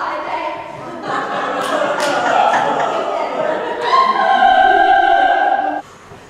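Operatic singing, ending on a long held note that cuts off suddenly near the end.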